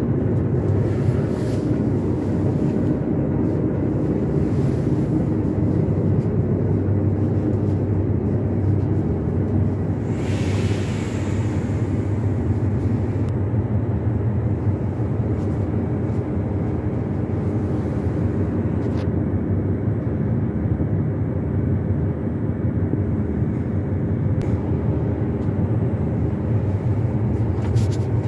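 Diesel railcar engines idling, heard from inside the carriage of a JR Shikoku limited express standing in the station: a steady low hum made of several held tones. A short hiss comes in about ten seconds in and fades a couple of seconds later.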